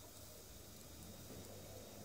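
Near silence: faint room tone with a low, steady hum.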